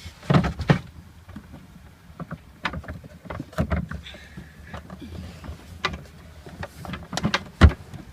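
Irregular knocks and clunks from a Rug Doctor carpet cleaner being handled and moved about, the loudest knock near the end.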